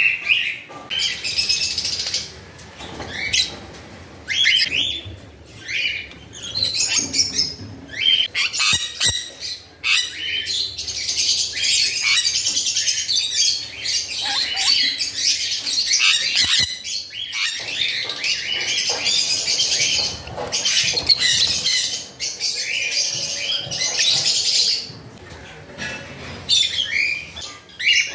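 Many caged small parrots chirping and squawking at once, a dense, overlapping chatter of short high calls with a few brief lulls.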